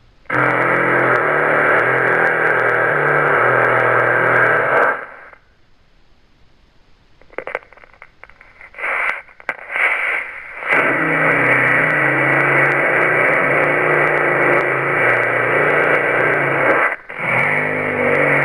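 Crocodile frog call sound effect: a long, low buzzing call whose pitch steps up and down, lasting about five seconds, then a few short bursts, then a second long call of about six seconds and a brief one near the end.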